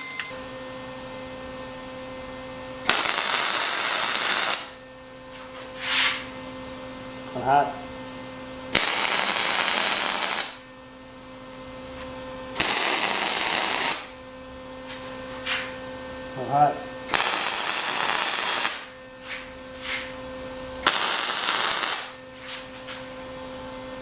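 MIG (wire-feed) welder laying five short tack welds on steel, each a burst of harsh crackling lasting about one and a half seconds. A steady low hum and a few small knocks fill the gaps between the welds.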